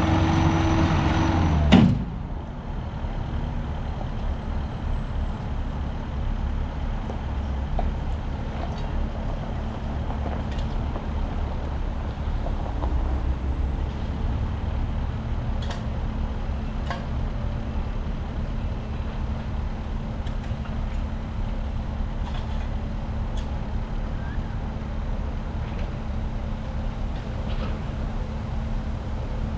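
Motor vehicle running with a steady low rumble and a constant hum. A louder droning engine sound cuts off sharply about two seconds in.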